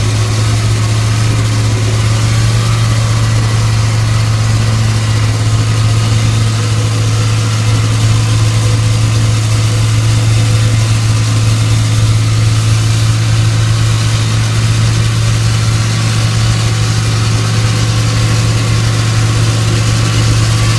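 Gasoline plate compactor, a 200-pound machine with a 20-inch plate, running steadily as it vibrates over crushed-rock fill, packing the gravel down. A loud, steady low drone that does not change.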